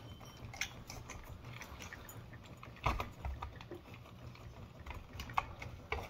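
Light clicks and taps of metal and glass parts being handled as a ceiling fan's light kit is fitted back onto the switch housing, with one louder knock about three seconds in.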